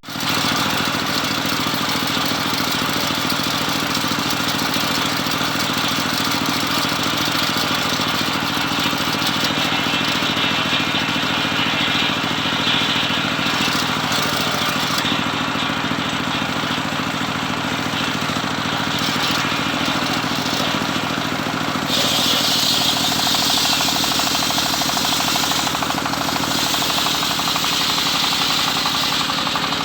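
Homemade circular saw running steadily while sawing teak, a low machine hum under a hissing cut. About three quarters of the way through, the higher hiss of the blade grows louder.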